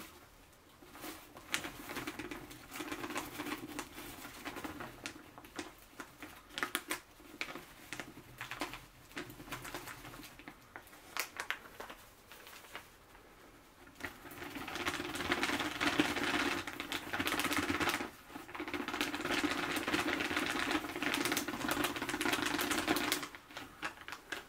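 Sand poured and shaken from a plastic zip bag into a glass tank: irregular ticks and rustles of grains and crinkling plastic. A steadier, louder run of pouring starts about halfway through, breaks off briefly, and stops just before the end.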